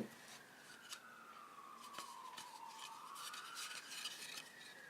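Faint distant siren wailing, its pitch sliding slowly down and back up, with a few light clicks of small handling noises.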